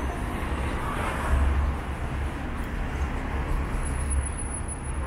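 Steady outdoor city ambience: a low rumble of road traffic with a constant hiss, no distinct events standing out.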